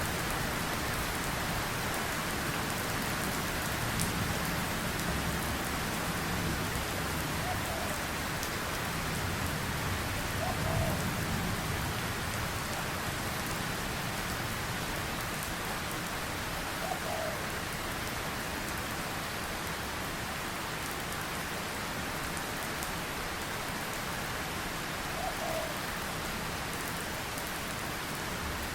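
Steady rain falling, an even hiss with a low rumble that swells for a few seconds in the first half. Four faint short chirps come through the rain at intervals.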